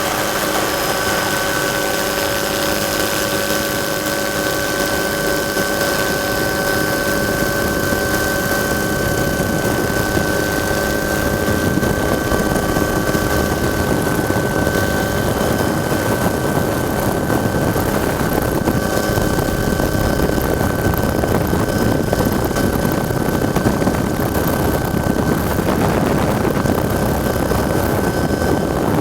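Helicopter in flight, running steadily: a constant high whine over a dense rushing noise, the rushing growing slightly louder about halfway through.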